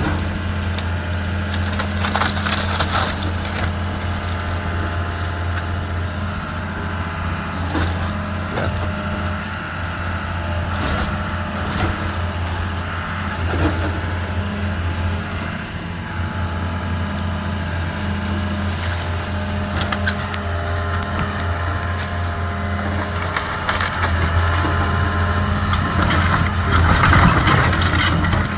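Wooden wall of an old house being torn down: timber cracking and splintering in scattered bursts, with the longest and loudest crash near the end. Under it a demolition machine's engine runs steadily.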